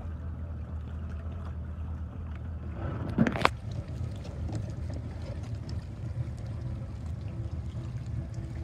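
Water lapping against a pontoon boat's hull over a steady low hum, with a short loud rushing noise about three seconds in.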